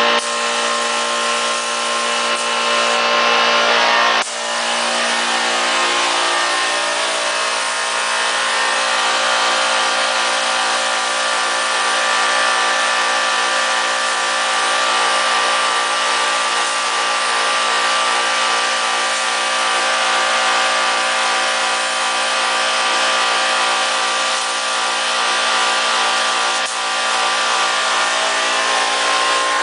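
Compressed air hissing steadily from a gravity-feed paint spray gun as a car is sprayed, over a steady machine hum made of several tones that shifts slightly a few seconds in.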